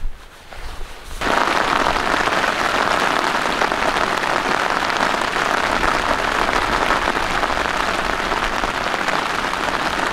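Rain falling steadily on a tent's fabric fly, a dense hiss that comes in suddenly about a second in.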